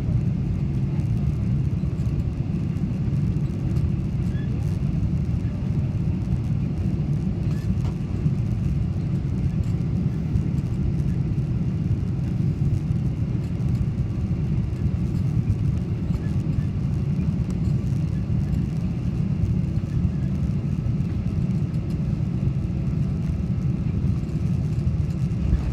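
Steady low rumble inside a passenger airliner's cabin during landing, with no change in level.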